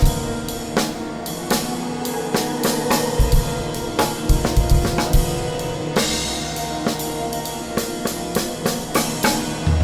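Freely improvised drum kit playing: busy, irregular snare, cymbal and bass drum hits, with a few deep bass drum thumps, over several sustained held tones.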